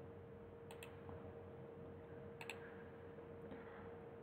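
Two faint computer clicks, one under a second in and one about halfway through, over a steady faint electrical hum.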